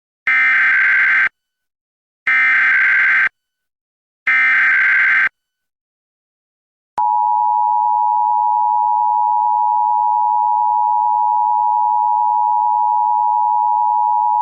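Emergency Alert System SAME header: three one-second bursts of data tones about a second apart, opening a Required Monthly Test. About seven seconds in, the steady two-tone EAS attention signal starts and holds.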